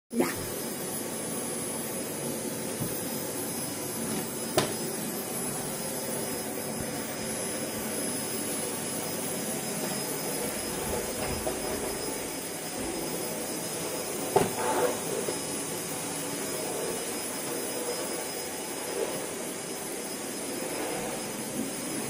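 Vacuum cleaner running steadily, with a steady high whine over its rushing noise. A few sharp knocks come through: one at the start, one about four and a half seconds in, and a louder one about fourteen seconds in.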